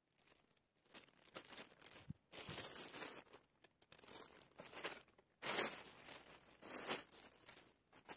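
Packing material around a new fishing rod crinkling and tearing in a series of irregular bursts as the rod is unwrapped and pulled out of its tape-wrapped cardboard tube.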